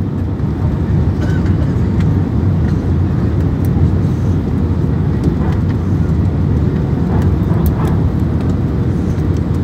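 Steady low rumble of jet engines and rushing air inside an airliner cabin during the descent to land.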